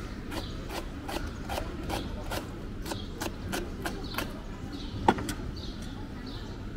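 Knife chopping red onion on a wooden cutting board: a steady run of short knocks, about two or three a second, with one sharper knock about five seconds in.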